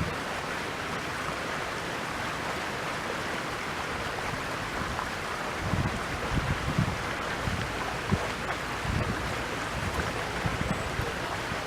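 Steady rushing of flowing stream water, with a few short low rumbles of wind buffeting the microphone in the second half.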